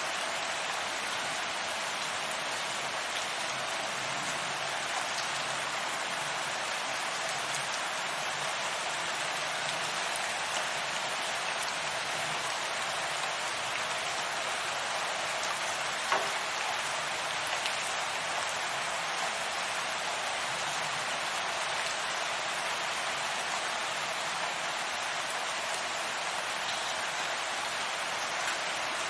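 Steady rain falling, an even hiss with one louder tick about sixteen seconds in.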